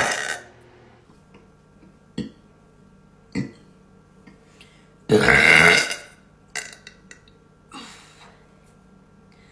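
A woman burping loudly: one burp ends about half a second in, and a second loud burp lasting about a second comes about five seconds in. Two short, sharp sounds fall between them, and a few faint clicks follow.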